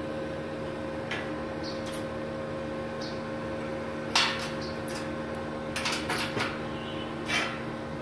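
Steady hum of a MIG welding machine, broken a few times by short bursts of hiss, the loudest about four seconds in and others near six and seven seconds.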